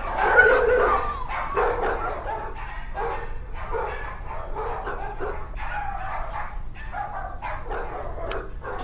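Several dogs barking and yelping in kennels, overlapping barks coming a few to the second, loudest in the first second or so.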